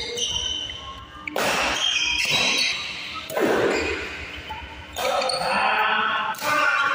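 Badminton doubles rally: rackets striking the shuttlecock several times, with shoes squeaking on the court floor.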